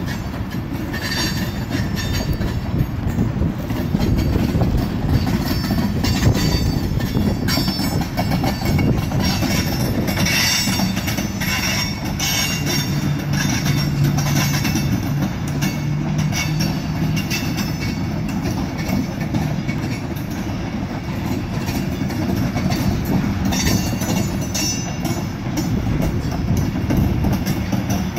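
Covered hopper cars of a slow freight train rolling past close by: a steady rumble of wheels on rail with clickety-clack over the joints and a few faint high wheel squeals. Wind buffets the microphone.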